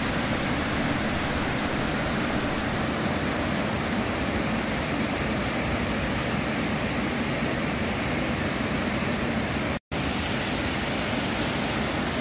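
Rideau Falls, a broad waterfall where the Rideau River drops into the Ottawa River, rushing in a steady, even noise. The sound cuts out completely for an instant near the end, then carries on unchanged.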